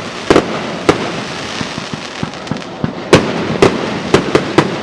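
Fireworks going off: sharp bangs, two in the first second, then a lull, then five in quick succession from about three seconds in, over steady background noise.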